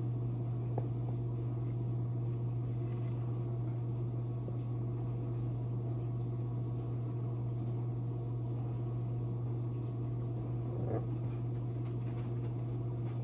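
Dishwasher running in the background: a steady low hum. A few faint scratches of a dry-erase marker on a whiteboard.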